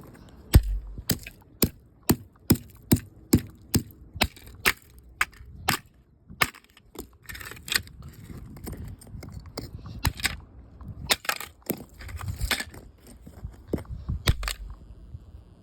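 Digital alarm clock being smashed: a quick run of hard strikes, about two a second, then irregular cracking and crunching as the case breaks apart.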